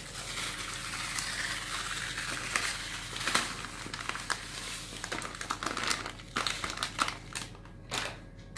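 A packet of desiccated coconut crinkling and rustling as it is shaken to scatter the flakes over a tray of cake batter: a continuous rustle at first, then sharper separate crinkles over the last few seconds.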